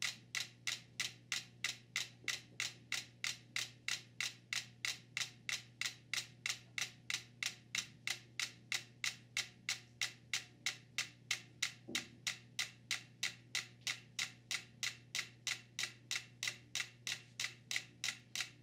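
Five mechanical metronomes on a board that rests on rolling cans, ticking in step as one steady beat of sharp clicks, about four a second. The board rolling on the cans couples the pendulums and has pulled them into synchrony.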